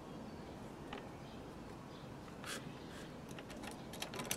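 Faint clicks and rattles of a metal crocodile clamp being handled and clipped onto a car battery's negative terminal, most of them bunched near the end, over a low steady hiss.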